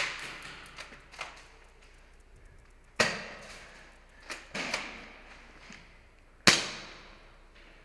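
Airsoft guns firing single shots: about six sharp cracks spread over several seconds, the three loudest roughly three seconds apart, each with an echoing tail from the large indoor hall.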